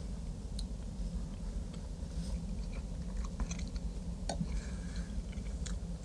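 A person chewing a mouthful of chili, with a few light clicks of a metal spoon against the plate over a low steady hum.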